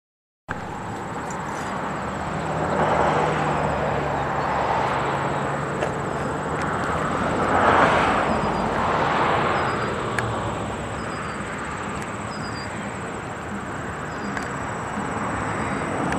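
Jet noise of a Boeing 717-200's two Rolls-Royce BR715 turbofans at takeoff power during the takeoff and climb-out: a continuous broad rushing rumble that comes in about half a second in, swells loudest around eight seconds in as the airliner climbs past, then eases a little.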